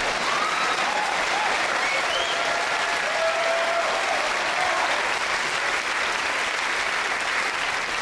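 Audience applauding a comedian's punchline: steady clapping from a large seated crowd, with a few cheers over it in the first few seconds.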